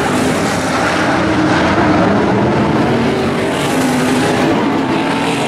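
Several non-wing sprint car V8 engines running together at racing speed. Their pitches overlap and shift against one another in a steady, loud engine noise.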